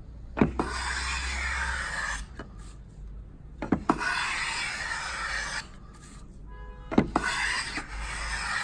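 A wooden hand plane being set and test-cut: two quick hammer taps on the plane blade, then a hissing shaving stroke along a narrow strip of wood lasting about a second and a half. This happens three times as the blade setting is checked.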